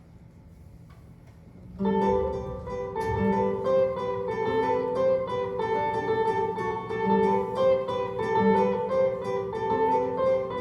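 Acoustic guitar starts playing about two seconds in, picking a steady, repeating chord pattern as a song introduction, after a quiet moment of room noise.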